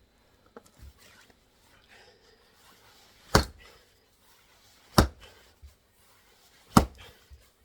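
Axe striking a firewood log three times, sharp loud chops about one and a half seconds apart.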